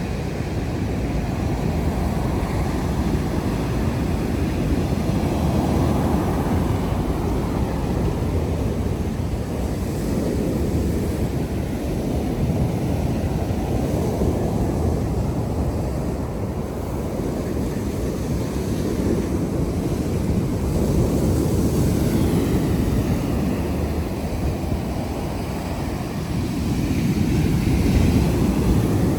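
Wind rumbling on the microphone, a steady low noise that swells and eases every few seconds and grows a little louder near the end.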